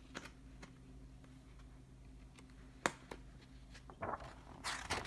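Quiet room tone with a few faint clicks and one sharp tick about three seconds in, then the brief rustle of a picture-book page being turned near the end.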